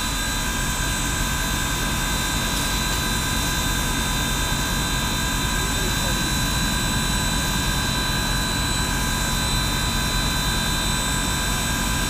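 Union Pacific Big Boy 4014 steam locomotive standing at rest with steam up: a steady hiss with several high whining tones held through it.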